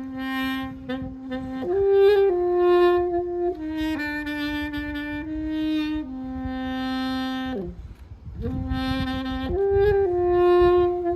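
Saxophone playing a slow melody of long held notes, with a downward slide into a short breath break about eight seconds in before the tune resumes.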